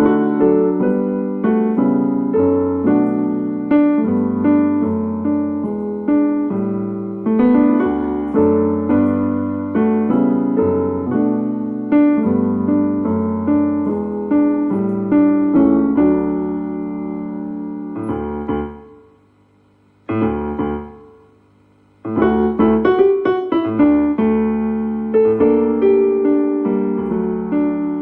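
Yamaha MM6 synthesizer keyboard playing a piano sound: chords over a moving bass line. The playing stops for a couple of seconds about two-thirds of the way through, with one short chord in the gap, then carries on.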